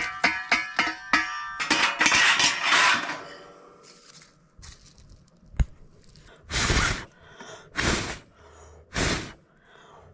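Cleaning out a stainless-steel charcoal jiko: about a dozen quick metallic clinks as the ash tray and grate are knocked, then scraping of ash, a single sharp click, and three short whooshes near the end.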